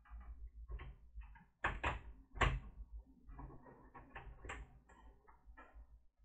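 Hands and tools working on a laptop's plastic case during disassembly: a run of clicks, knocks and rattles, the two loudest knocks close together about two seconds in.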